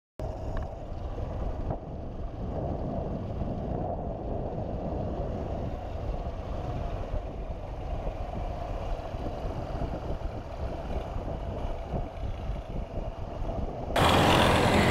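Motorcycle engine running at low riding speed, heard from the rider's own bike, with wind rumbling on the microphone; the sound gets louder about a second before the end.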